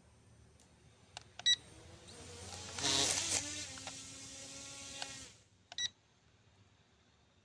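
P9S drone's small propeller motors spinning up about two seconds in, whirring with a whine for about three seconds, then cutting off abruptly. Short electronic beeps come just before the spin-up and just after it stops.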